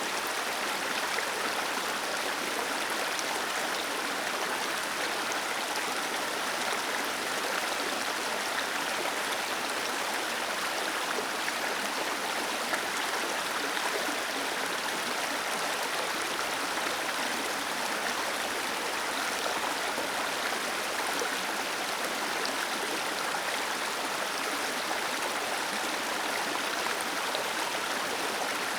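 Small waterfall cascading over rocks, a steady rushing of falling water with no change in level.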